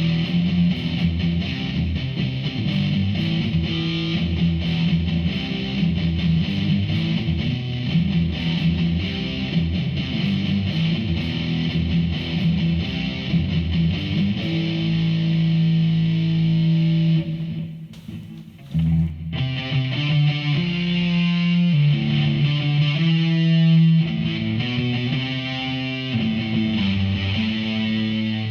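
Electric guitar played through a Behringer V-AMP PRO amp-modelling processor on a distorted preset: a dense, busy riff, a short break about two-thirds of the way in, then a riff of separate held notes.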